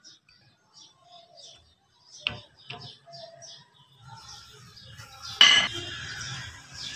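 Small birds chirping in short, high, evenly spaced calls, with two sharp clicks a little over two seconds in and a louder knock about five and a half seconds in as a trolley caster wheel is handled.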